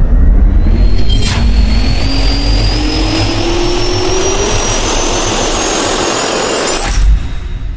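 Jet turbine spool-up sound effect: a whine rising steadily in pitch over a deep rumble and a swelling rush of air, with a sharp hit about a second in, cutting off abruptly with a final hit near the end.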